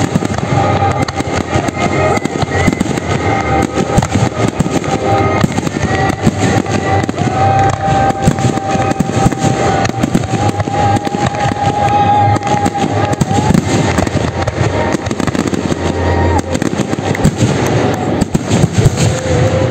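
Aerial fireworks display at full barrage: shells bursting one after another, several at once, with crackling stars and no let-up.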